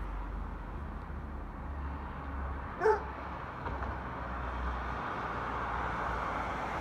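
A fire department brush truck approaches along the street, its engine and tyre noise growing toward the end, with no siren sounding. A dog barks once, sharply, about three seconds in.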